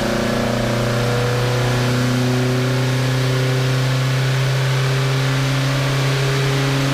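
Volvo 145's B20 inline-four engine, fed by twin Weber 45 carburettors through a free-flowing 2-inch sport exhaust, running loud and steady under load on a chassis dynamometer.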